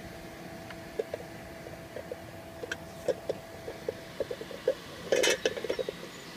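Light knocks and clicks of a large white pyranometer shield being handled and seated over an Eppley SPP pyranometer, with a short cluster of knocks about five seconds in. A faint steady hum runs underneath.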